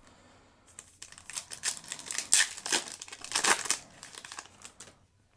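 Foil booster pack wrapper crinkling as it is torn open and the cards are slid out, a run of sharp rustles starting about a second in and loudest in the middle.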